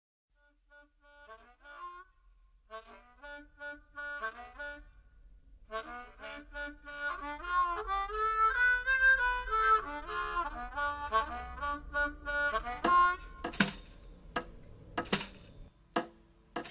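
Harmonica playing chords in short phrases, coming in about a second in and growing fuller partway through. A few sharp knocks sound in the last few seconds.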